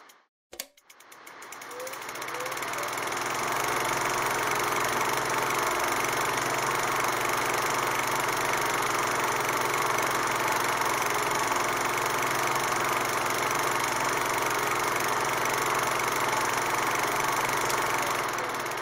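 A running film projector, a steady mechanical noise. It fades in after a short gap and a click near the start, and fades out at the very end.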